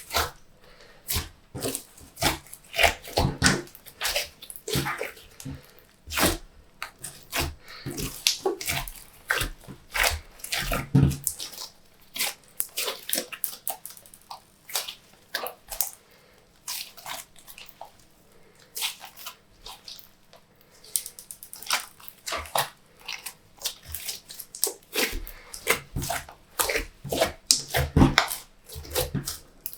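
Glossy slime being squished and stretched by hand, making irregular wet clicks and pops.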